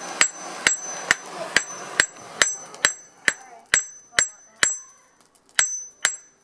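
Hand hammer striking steel on a small steel anvil block, forging an arrowhead: a steady run of sharp blows, about two a second, many with a high metallic ring. There is a short pause in the rhythm about five seconds in.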